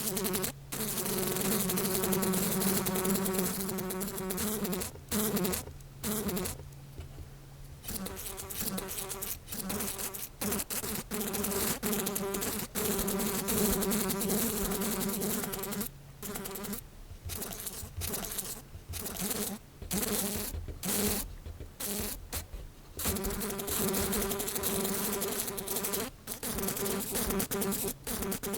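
House flies buzzing in flight, a droning wingbeat hum that swells and fades as they fly about, cutting out abruptly for brief moments several times.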